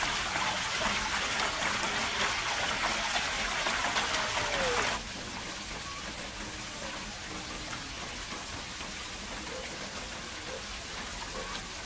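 Wet, squelching hiss of hands rubbing a watery marinade into raw pork ribs on a tray. The sound is loudest for the first five seconds, then drops abruptly to a quieter wet hiss.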